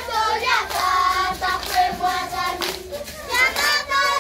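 A group of children singing a Kikuyu folk song together in chorus, with hand claps.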